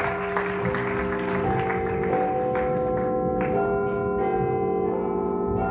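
Music: a slow run of struck notes, a new one about every half second, each ringing on and overlapping the ones before.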